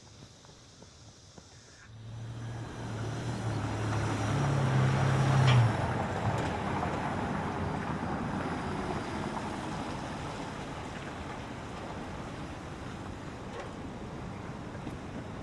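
A car drives by. Engine and tyre noise swell from about two seconds in, peak around five seconds, then settle into a steady road hum.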